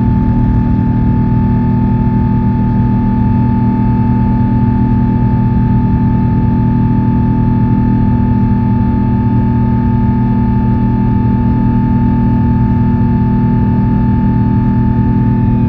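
Airbus A350-1000's Rolls-Royce Trent XWB-97 turbofans at climb thrust, heard from inside the cabin: a loud, steady drone of low tones with a constant high whine over it.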